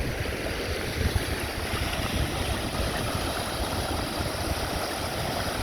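Wind buffeting the microphone over the steady rushing of a creek in flood.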